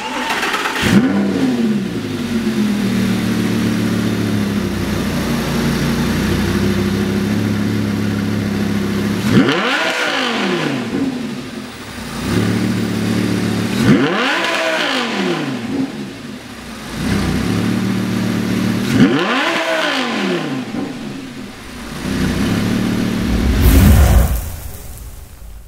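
Lamborghini Gallardo LP560-4's V10 engine idling through an aftermarket valved exhaust, then revved three times, each rev rising and falling over about two seconds. Near the end comes a loud swelling whoosh sound effect.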